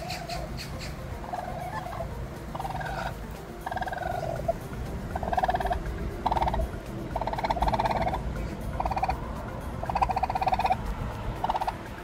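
Domestic turkey calling: a series of short, buzzy calls, about one a second, growing louder partway through.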